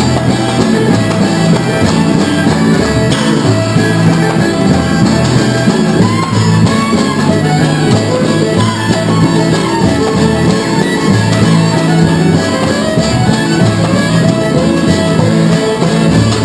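Live acoustic string band playing an upbeat tune: a bowed fiddle leading over a plucked upright bass, with a third string instrument.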